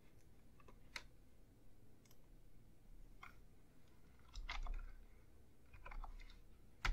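Faint computer mouse clicks and keyboard keystrokes, single clicks a second or two apart at first, then short quick runs of keys in the second half.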